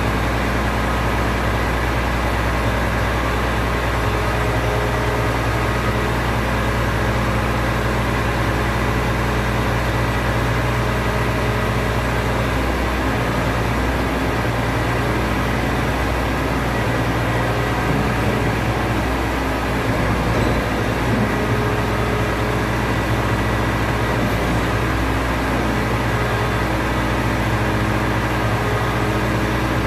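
Side-loader container truck's diesel engine running steadily while its hydraulic crane arms lower a shipping container onto the trailer, the engine note wavering slightly about halfway through.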